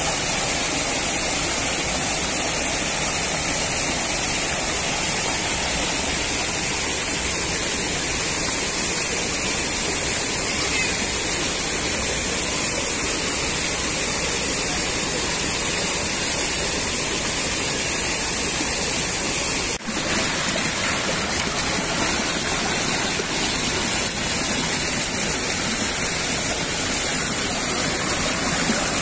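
Rushing water of a rocky mountain stream and low waterfall: a steady, even rush that dips briefly a little past two-thirds of the way through.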